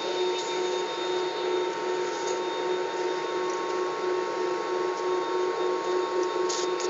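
Jet airliner engines running steadily, heard inside the cabin: an even rushing noise with a constant whine.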